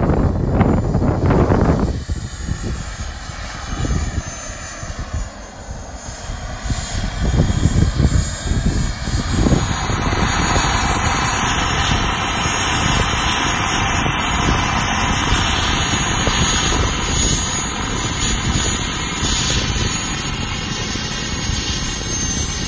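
Turbine-powered RC scale Lama helicopter flying and coming down to land, its rotor noise buffeted by gusty wind on the microphone. From about nine seconds the model's small gas turbine gives a steady high whine over the spinning rotors.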